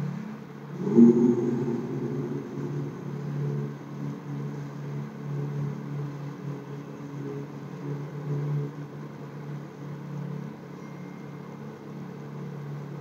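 A steady low mechanical hum with a slight waver, swelling briefly louder about a second in.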